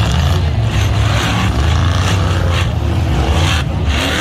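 Several Ultra4 off-road race cars running flat out across a rock section, their engines loud and steady with a deep rumble and changing revs.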